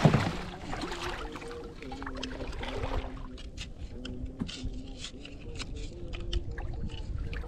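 Water sounds during a night spearfishing dive among reef rocks: a rush of water noise in the first second, then a faint low hum that shifts pitch in steps, with many scattered sharp clicks from about three seconds on.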